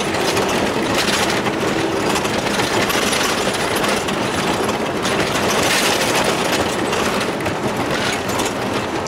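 Car cabin noise while driving over a rough, patched concrete-slab road: loud, steady tyre and road rumble with rattling.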